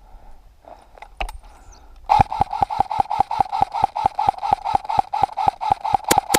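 Airsoft electric gun (AEG, an M4) firing a long full-auto burst: sharp shots about five or six a second over the motor and gearbox whine, starting about two seconds in and running almost to the end.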